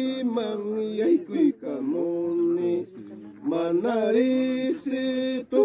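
Men singing a traditional song in long held notes that bend at the end of each phrase, with short breaks between phrases.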